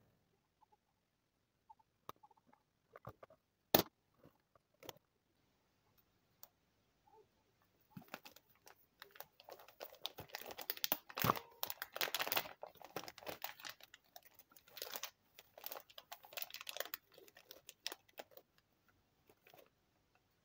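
Embossed plastic vacuum-sealer bag crinkling and rustling as it is handled, in a dense run of crackles through the second half. Scattered small clicks come before it, with one sharp click about four seconds in.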